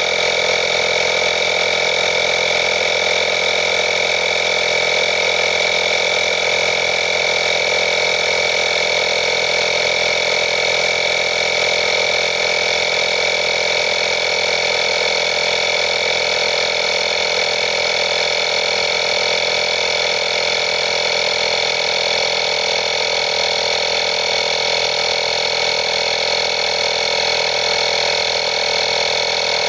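INGCO digital portable tyre inflator running steadily, its small electric piston pump making an even, high-pitched drone while it inflates a car tyre that is still low, at about 11 to 15 psi.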